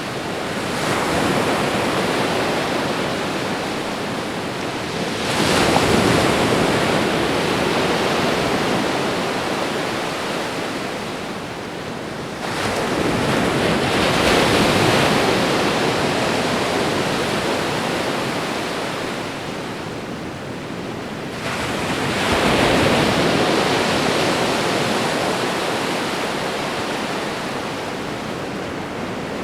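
Ocean waves breaking and washing up a shore, a steady rush of surf with a new wave surging in about every eight seconds, three times, each fading away before the next.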